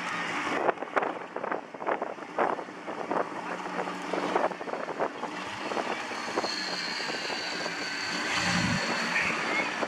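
Off-road truck engines running in a mud field, with a quick run of short, sharp crackles and knocks through the first half.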